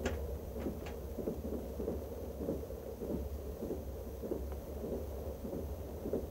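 Steady low rumble of a moving train, heard inside a dining car. A sharp clink of tableware comes right at the start, and a few faint clinks follow.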